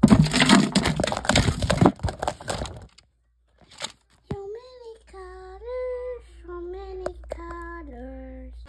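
Loud crackling and rustling handling noise with sharp clicks for about three seconds, then a short pause, then a high voice singing a short melody of held notes that step up and down.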